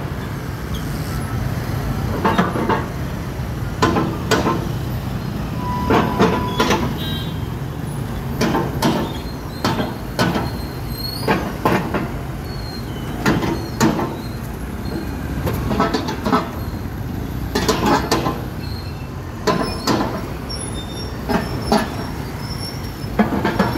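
Motorcycles and scooters running at low speed as they ride onto a roll-on ferry's vehicle deck, over a steady low engine rumble. Sharp knocks come every second or two, and a short horn beep sounds about six seconds in.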